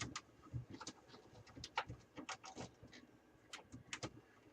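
Faint, irregular clicks, knocks and scrapes as a four-port USB front-panel unit is worked into a tight-fitting floppy drive bay of a desktop PC case.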